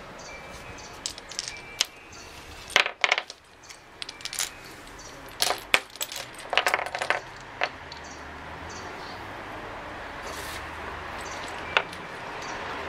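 Small hard lottery tokens clicking and clattering as they drop onto a pile on a wooden table and are stirred by hand. The clicks come irregularly, in bunches about three seconds in and around six to seven seconds in, with a single sharp click near the end.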